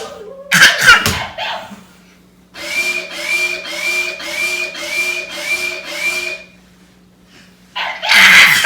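Top Race TR-P5 robot dog toy making a repeating whirring, buzzing sound with a small rising blip about twice a second, lasting roughly four seconds. Short bursts of noise come about half a second in and near the end.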